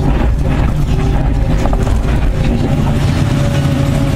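Liebherr R 944 C excavator's diesel engine running under load, heard inside the cab, with a steady hydraulic whine over a low hum. A few knocks and scrapes come in the first couple of seconds as the bucket digs into crushed rock.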